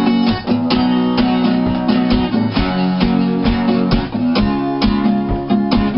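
Guitar strummed in a steady rhythm: the accompaniment just before a comic song is sung over it.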